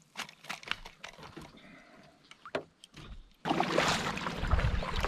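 A few light clicks and knocks of gear being handled in a kayak, then, about three and a half seconds in, the sudden, louder sound of a kayak being paddled: paddle strokes and water moving along the hull.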